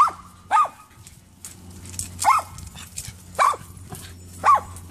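Poodle barking: five short barks, roughly a second apart, with a longer pause after the second.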